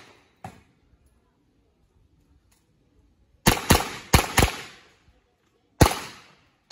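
Revolver firing on a stage of an action-pistol match, each shot a sharp crack trailing off in an echo. A fainter crack comes about half a second in. About three and a half seconds in come four fast shots within a second, then a single shot about a second and a half later.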